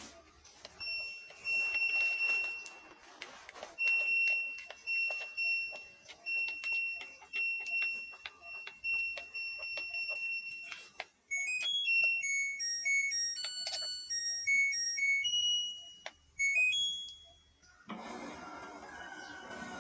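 LG washing machine control panel beeping: a string of short, identical electronic beeps with faint clicks as its buttons are pressed, the just-repaired buttons now responding. About eleven seconds in it plays a short electronic tune of quick stepped tones.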